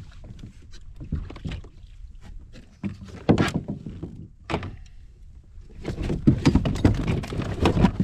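Irregular knocks, thuds and rustling against a fishing kayak's hull as a tangled fish and line are handled, busiest about three seconds in and again over the last two seconds.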